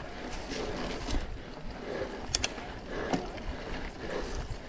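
Mountain bike being ridden on a dirt trail: steady tyre and wind noise with sharp clicks and rattles from the bike, the clearest about two and a half seconds in.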